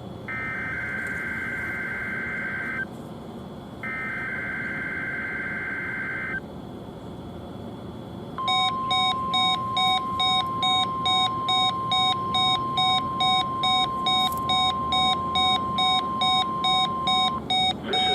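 NOAA Weather Radio test alert: two buzzy SAME digital header bursts, each about two and a half seconds, followed about eight seconds in by the steady 1050 Hz warning alarm tone, held for about nine seconds. Under the tone a weather-alert receiver's alarm beeps rapidly, about two or three beeps a second, and keeps beeping after the tone stops.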